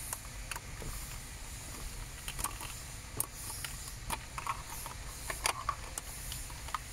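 Several sharp plastic clicks and light rattling as wiring connectors are pulled off the back of a car dashboard trim panel, over a low steady hum.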